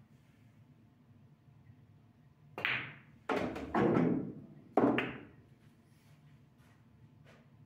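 A pool shot: the cue strikes the cue ball, the cue ball clacks into the black object ball, and the pocketed ball drops and rolls with a rumble through the table's ball-return channel. The sharp knocks come over about two and a half seconds, starting a little before the middle.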